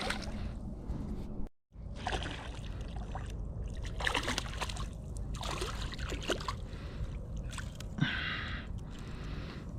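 Water sloshing and splashing against a small paddled boat's hull in several short bursts, over a steady low rumble of wind on the microphone. The sound drops out completely for a moment about a second and a half in.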